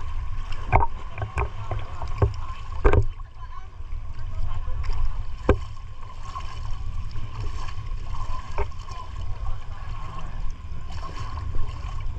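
Kayak paddling on the water: scattered knocks and splashes from the paddle strokes over a steady low rumble.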